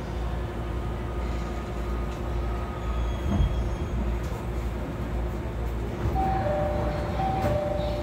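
Inside an E217-series commuter train: a steady low rumble with a constant hum. About six seconds in, a two-note door chime starts, high then low, repeating about once a second.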